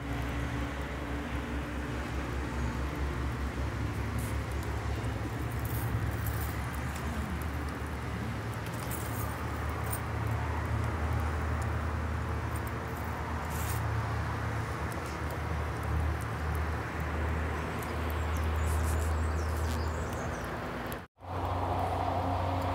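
Uneven low rumble, like wind buffeting the phone's microphone, with faint crackles from burning firewood. The sound cuts out briefly near the end.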